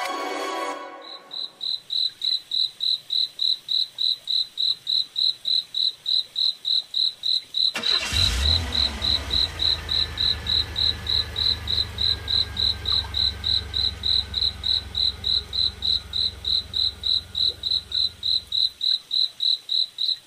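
A cricket chirping steadily in an even rhythm, about two and a half high chirps a second. About eight seconds in, a low rumble starts suddenly and runs for about ten seconds before stopping.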